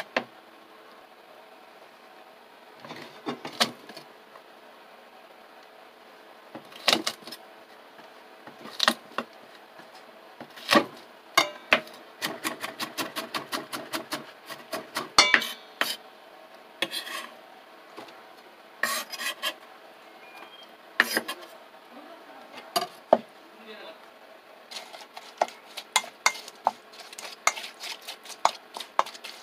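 A kitchen knife cuts garlic on a wooden cutting board, with scattered knocks and a quick run of strokes in the middle. Utensils clink against a stainless steel bowl. Near the end, rapid scraping and clicking comes from a utensil stirring chili-flake seasoning in the bowl.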